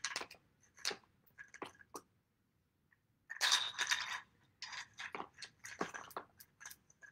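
Ice cubes being dropped into a bin of water: a series of irregular short clinks and knocks, with a denser, louder clatter about three and a half seconds in.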